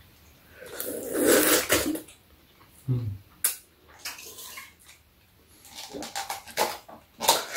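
Udon noodles slurped noisily from a bowl: one long, loud slurp about a second in, then a brief click and a run of shorter slurping and eating noises near the end.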